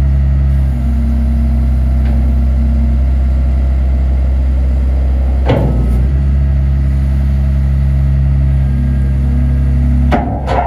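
Caterpillar 928G wheel loader's diesel engine running steadily while the machine manoeuvres, with a short burst of noise about halfway through and a louder rush of noise near the end.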